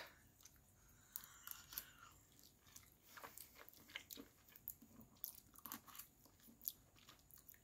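Faint, irregular chewing and small wet mouth clicks of a person eating a forkful of spaghetti bolognese.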